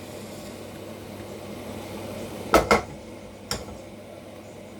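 Spatula knocking against a frying pan: two quick clacks about two and a half seconds in and a lighter one a second later, over a low steady hiss.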